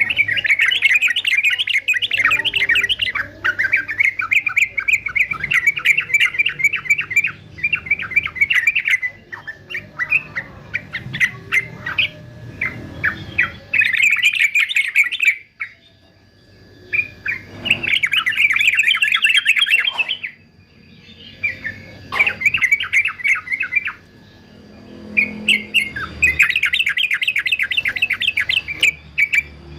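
Male yellow-vented bulbul singing: fast, chattering phrases one to a few seconds long, repeated with short pauses between.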